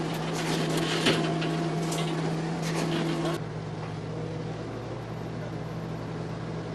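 Steady machinery engine hum with sharp metallic clinks and knocks of steel rebar cages being worked. A little over three seconds in, the clinks stop abruptly and a lower steady engine drone remains.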